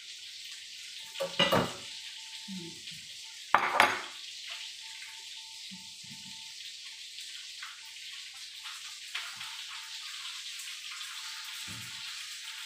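A ceramic bowl with a metal spoon in it knocked and set down on a stone countertop: two sharp clinks with a short ring in the first four seconds, over a steady hiss.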